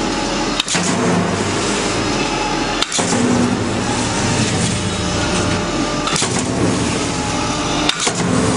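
Steady running noise of an automated machine's rotating tool head finishing the seam between a stainless steel sink bowl and its worktop. The noise is broken by a few brief dropouts.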